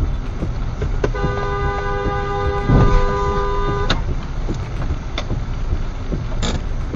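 A car horn holds one steady two-note blast for about three seconds, starting about a second in, over constant road and rain noise. There is a low thump partway through the blast.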